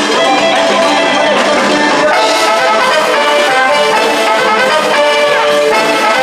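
A band plays an instrumental passage: a melodic lead line moves over steady accompaniment, with no singing.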